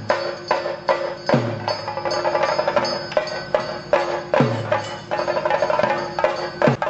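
Theyyam ritual drumming: drums struck in a steady rhythm of about two to three strokes a second, with a deep stroke that drops in pitch about every one and a half seconds, over steady ringing tones.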